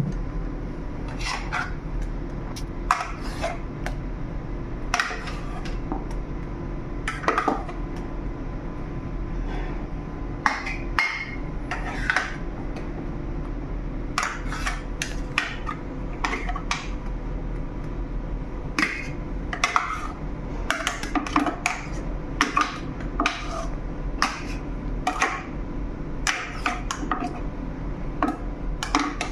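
Metal spatula scraping and knocking against the stainless-steel freezing barrel of a Carpigiani batch gelato freezer and a steel bowl as the gelato is emptied out, in many short, irregular clicks and scrapes. A steady low hum runs underneath.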